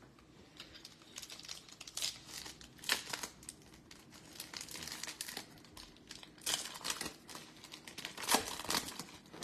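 Plastic wrapper of a Topps baseball card pack crinkling and crackling as it is handled and torn open by hand, in irregular bursts; the loudest come about three seconds in and again near the end.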